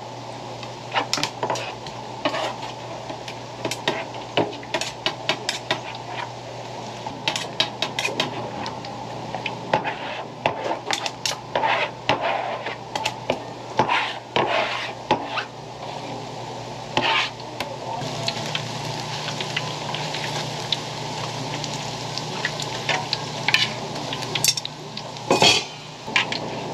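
A metal knife scrapes and taps against a plastic cutting board in many short clicks as fish paste is spread around sausages. From about two-thirds of the way in, fish cake hot bars sizzle steadily in deep-frying oil.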